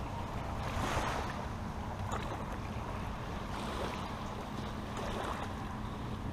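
Steady outdoor wind and water noise, with a few faint soft swells.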